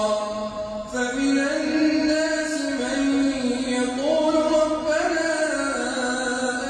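A man chanting the Quran in melodic tajwid recitation, drawing out long held notes with ornamented turns. A short pause for breath comes about a second in, then a new phrase begins.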